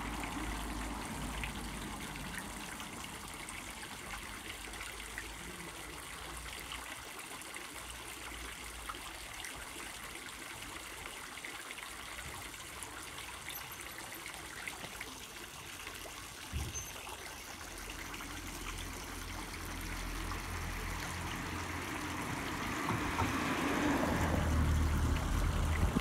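Small public fountain: several thin jets of water from bronze figures splashing steadily into a round stone basin. The splashing grows louder near the end.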